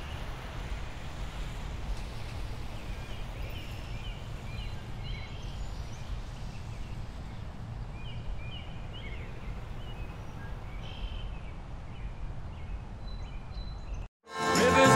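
Outdoor ambience: a steady low rumble with faint bird chirps now and then. The sound cuts out about fourteen seconds in, and music with singing swells in right after.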